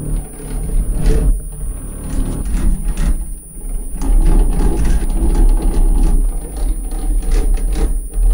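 Homemade wooden gear-and-chain contraption worked by hand: a dense run of irregular mechanical clicks and rattles over a deep low rumble, growing louder about four seconds in.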